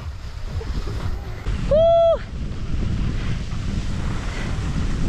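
Wind buffeting the microphone in a steady low rumble, cut about two seconds in by one short, high-pitched whoop that swoops up, holds for about half a second and drops away.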